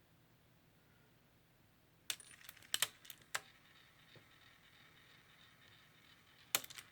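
Sony WM-EX1 Walkman cassette mechanism being tried with its newly fitted drive belt. A few sharp clicks come about two seconds in, then the drive motor runs with a faint steady whir for about three seconds, and a cluster of clicks comes near the end.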